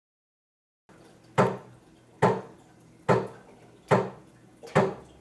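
Five sharp, evenly spaced percussive hits, a little under one a second, keeping a steady beat that leads into a sung jingle.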